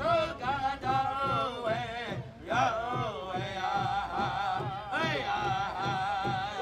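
A Native American drum group singing a chant: several men's voices in a high, wavering melody over a steady drumbeat.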